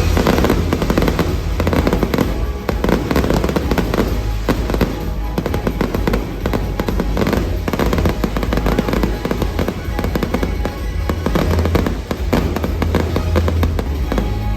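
Fireworks going off in quick succession, a dense run of bangs and crackles, over a loud music soundtrack with a steady bass.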